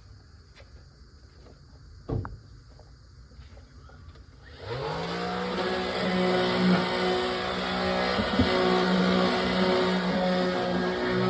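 A knock, then about halfway in a motor spins up quickly and runs at a steady pitch.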